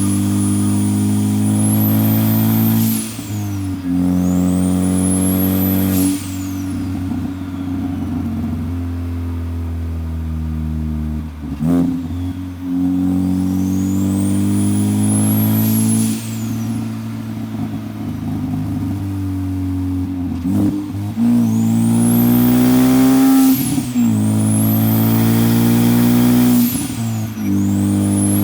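Turbocharged Ford Focus ST four-cylinder engine pulling hard through several gears, its note climbing on each pull and dipping briefly at each shift. A high turbo whistle rises during the pulls and falls away at the shifts.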